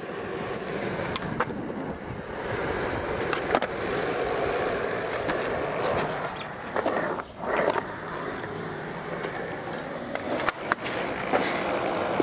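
Skateboard wheels rolling over concrete, broken several times by sharp clacks of the board hitting the ground.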